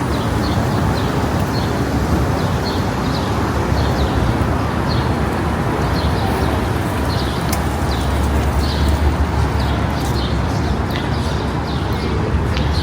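Street ambience: a steady low rumble of traffic that swells briefly about two-thirds through, with a bird chirping repeatedly over it, about once a second.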